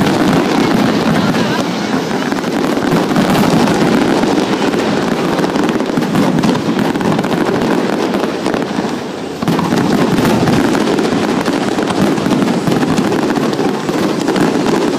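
Fireworks going off in rapid succession: a dense, continuous crackling and popping of bursting shells and crackle stars. The barrage sags for about a second two thirds of the way through, then comes back with a sudden loud burst.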